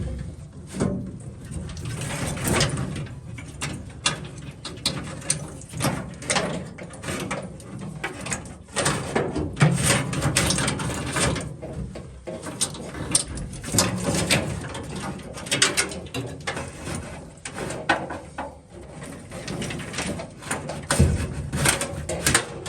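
Irregular clicking, rattling and scraping of hand work on a truck's old wiring, as old speaker wires are broken and pulled free.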